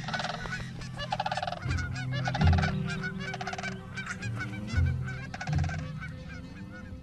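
Large waterbirds honking: about five loud, harsh calls, four of them within the first three seconds and one more near the end.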